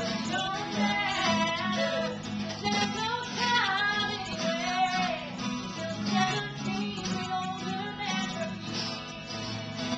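A woman singing live to an acoustic guitar accompaniment.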